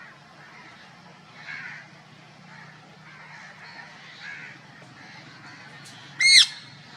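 A parrot gives one loud squawk near the end, rising then falling in pitch, over a faint steady low hum.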